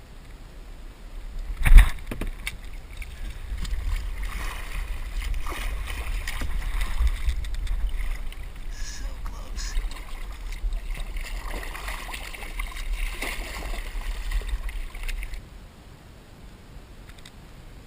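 A single sharp knock about two seconds in, then water sloshing and lapping against a kayak hull with wind buffeting the microphone for about twelve seconds, cutting off abruptly near the end.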